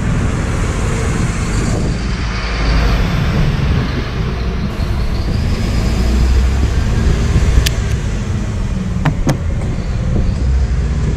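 Refuse collection truck's diesel engine running close by, a loud steady low rumble, with a few sharp clicks about eight and nine seconds in.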